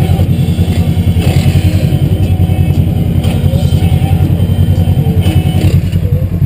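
An ATV engine idling close by, a loud low running sound with a fast, even beat.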